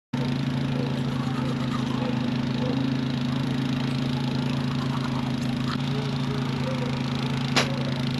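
Side-by-side UTV engine running steadily at an even, unchanging pitch, with a couple of short sharp clicks, the loudest about seven and a half seconds in.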